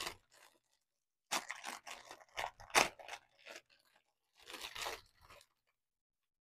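Small clear plastic bags of diamond-painting drills crinkling as they are picked up and handled, in a few short irregular bursts that stop about a second before the end.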